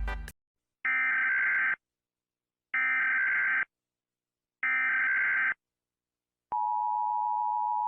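US Emergency Alert System alarm: three separate bursts of about a second each of the SAME digital header's data screech, spaced evenly, then the steady two-tone attention signal starting about six and a half seconds in.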